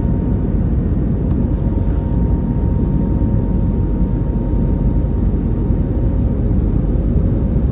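Airbus A321neo cabin noise in the climb after takeoff: a steady, loud low roar from its Pratt & Whitney PW1100G geared turbofan engines and the airflow past the fuselage, with a thin steady whine above it.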